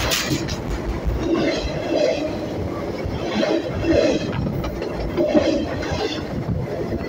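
A train rolling along the track close to the microphone: a steady rumble of wheels on rail, with louder clatter coming back about once a second.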